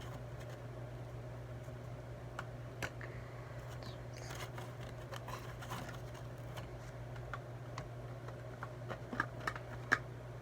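Light, scattered clicks and taps of a spoon and containers being handled while slime ingredients are prepared, a few sharper ones near the end, over a steady low hum.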